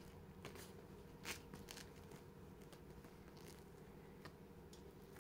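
Near silence with a few faint, short rustles and soft clicks, the loudest a little over a second in.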